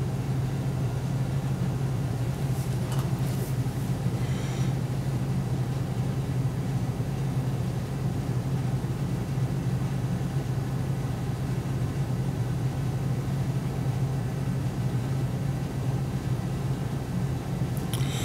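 A steady low hum over a faint even hiss, with no ticking.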